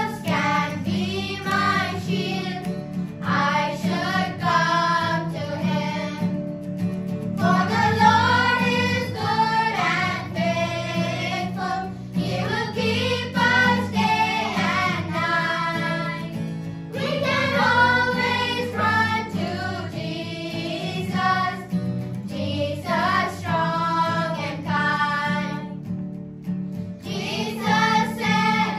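Children's choir singing in unison, phrase by phrase with short breaths between lines, over a sustained low electronic keyboard accompaniment.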